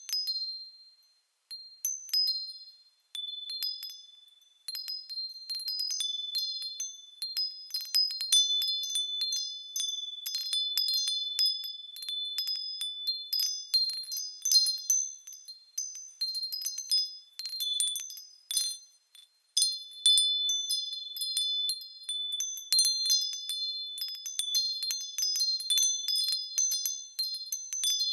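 Small bells ringing as they sway, struck irregularly so several high, clear pitches overlap and fade. There are short lulls near the start and about two-thirds of the way in.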